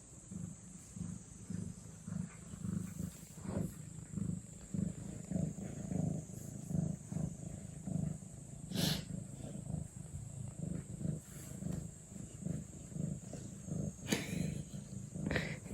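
Domestic cat purring steadily, the purr swelling and easing about twice a second with its breathing. Brief rustles about nine seconds in and twice near the end.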